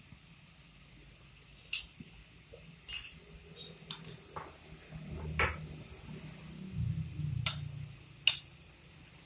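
Sharp kitchenware clinks, about seven spread through, over the faint bubbling of vinegar, water and sugar boiling in a nonstick frying pan. A low rumble rises around the middle.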